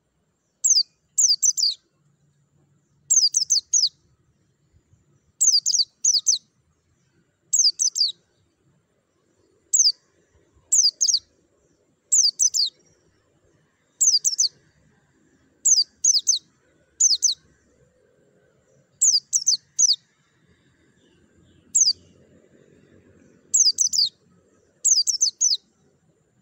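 Caged white-eye (pleci) singing short high chirps, each a quick run of one to three falling notes, repeated about every one to two seconds.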